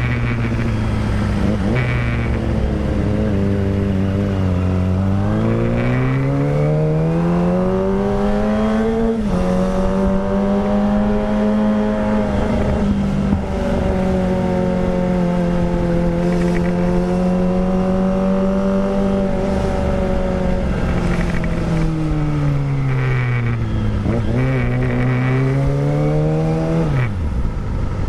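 Kawasaki Ninja ZX-25R's 250cc inline-four running through a Villan Pro 1 full-system exhaust while riding, loud. The engine note sags, climbs, drops abruptly at an upshift about nine seconds in, then holds steady, sags and climbs again before falling sharply near the end as the throttle closes.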